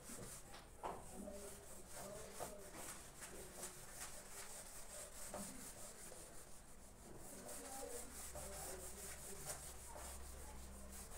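Whiteboard eraser wiping across a whiteboard in repeated back-and-forth strokes: a faint, rhythmic rubbing hiss as the drawing is cleaned off.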